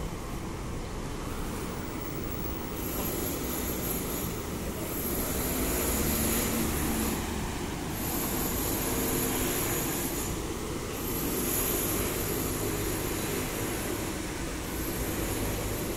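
Street traffic with a car driving past, over a steady low rumble. A high-pitched whine cuts in about three seconds in and keeps switching on and off.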